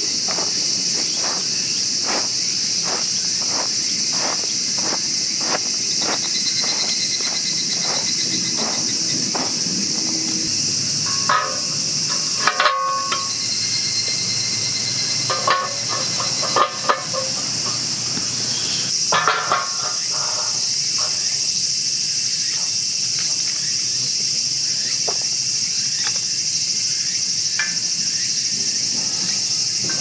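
A steady, high-pitched chorus of insects. Over roughly the first ten seconds there is a run of light, evenly spaced taps. Around the middle come a few louder clanks and rattles as a steel fire pit is handled and set in place.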